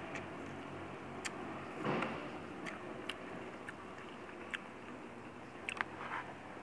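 A person chewing a mouthful of rice, with scattered soft wet mouth clicks and smacks and a short louder rush of noise about two seconds in, over a faint steady hum.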